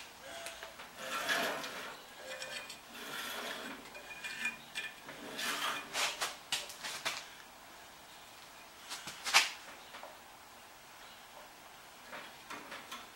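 Light metal clinks, scrapes and clicks as a bandsaw's blade, guides and upper wheel are handled and adjusted by hand, irregular and busiest over the first several seconds, with one sharp click about nine seconds in.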